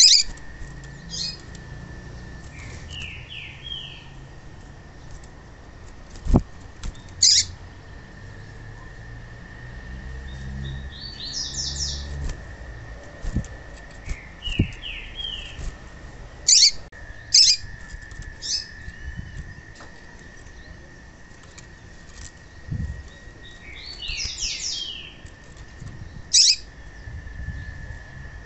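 Female papa-capim (yellow-bellied seedeater) calling, a call used to stir male papa-capim into song. Sharp high chirps come every few seconds, with four short runs of quick falling notes between them. Wings flutter partway through, and there is a single knock about six seconds in; a faint steady high tone runs underneath.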